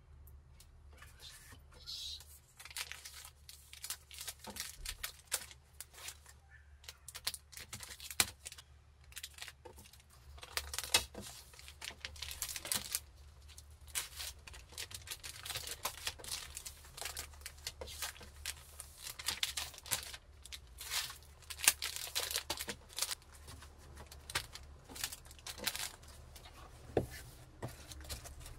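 Clear plastic packaging bag crinkling and rustling in irregular crackles as a fabric tote bag is handled and slipped inside it for packing.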